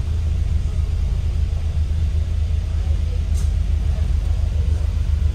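Double-decker bus running, heard from the upper deck as a steady low rumble, with a short high hiss about three and a half seconds in.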